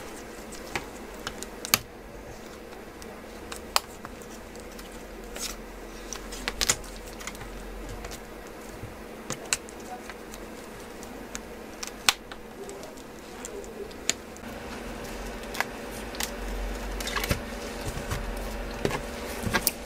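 Irregular small clicks and snaps as a tool works around the edge of a Wiko View 2 smartphone's back cover and its clips are pried loose, with a steady low hum underneath.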